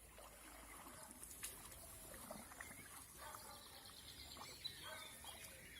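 Faint bird calls and chirps over quiet outdoor background, with a brief click about a second and a half in.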